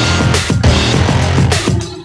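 Electronic background music with a heavy, driving beat, thinning out briefly near the end.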